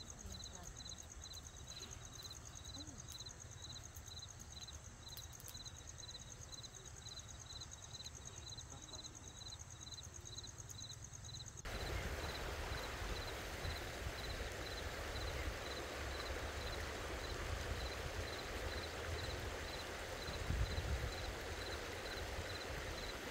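Night insects chirping in a steady pulsing rhythm over a low rumble. About twelve seconds in, the even hiss of a shallow rocky river running over stones takes over, and the chirping goes on beneath it.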